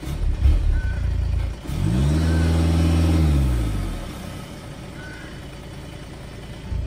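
2016 Volkswagen Tiguan's 2.0 TDI four-cylinder turbodiesel heard at the exhaust tips, blipped from idle twice in quick succession and then revved once. The pitch rises, holds for about a second and falls back to a steady diesel idle about four seconds in, and another blip begins right at the end.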